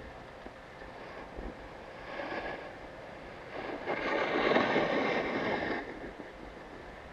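Steady hum and wind of a ski chairlift ride, with a louder rushing, scraping noise that swells briefly about two seconds in and again from about four to six seconds.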